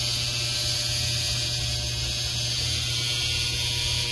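Steady machine hum with a high hiss, unchanging throughout.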